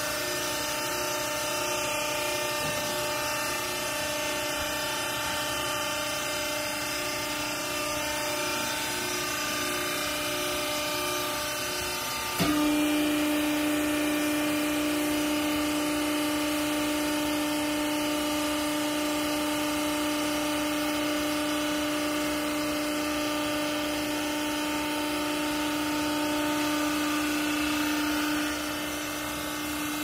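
Hydraulic power unit of a vertical clothing baler, an electric motor driving the hydraulic pump, running with a steady hum. About twelve seconds in there is a click and the hum changes pitch and gets louder and steadier as the pump comes under load driving the pressing ram down. It eases back a little near the end.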